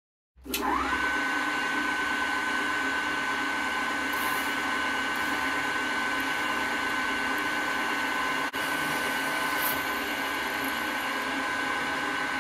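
Pillar drill motor starting up with a quickly rising whine, then running at a steady high whine while it drills a pilot hole into a cast iron casting.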